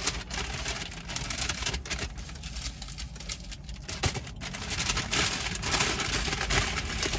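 Takeout food packaging rustling and crinkling as it is handled, a steady stream of quick crackles, over a low rumble of traffic.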